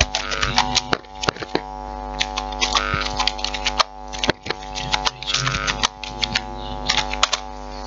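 Computer keyboard keys clicking in irregular bursts as a search query is typed, over a steady electrical hum.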